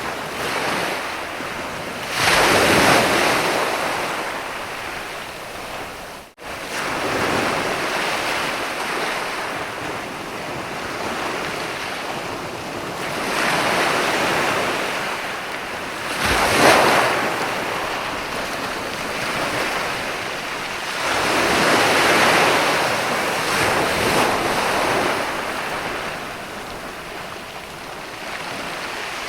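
Ocean waves breaking and washing up a sandy beach, coming in slow surges with the loudest about two and a half seconds in and about seventeen seconds in. The sound cuts out briefly about six seconds in.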